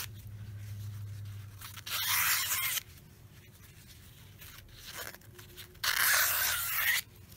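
Scissors cutting a strip of black fabric in two long cuts, each about a second, the first a couple of seconds in and the second near the end.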